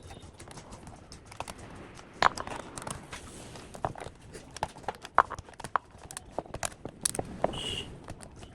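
Irregular clicks, taps and knocks of small hard plastic and metal laptop parts being handled during repair, with two louder knocks, one about two seconds in and one about five seconds in.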